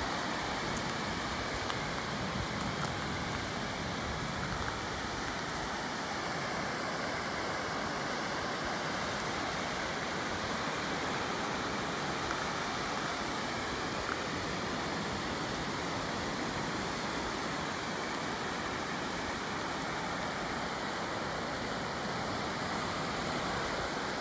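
Steady wash of ocean surf breaking on a sandy beach: an even roar with no rises or breaks.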